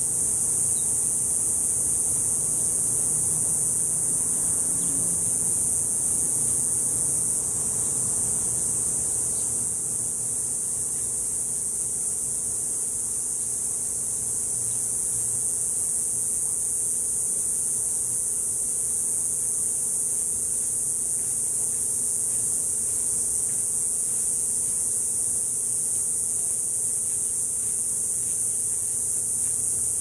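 Steady, high-pitched buzzing drone of cicadas singing, unbroken throughout, over a faint low hum.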